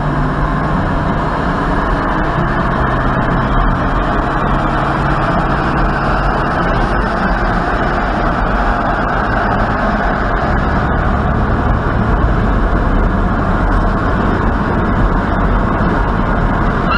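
Steady road and engine noise of a car driving at speed, heard from inside the cabin.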